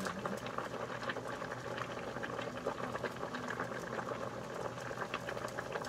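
A pot of bamboo shoots stewing in coconut milk simmering on the stove, with a steady crackling of small bubbles popping.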